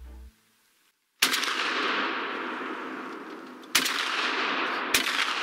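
Three shots from a 12-gauge smoothbore shotgun firing slugs: the first about a second in, the next two close together near the end. Each is followed by a long echo that fades slowly.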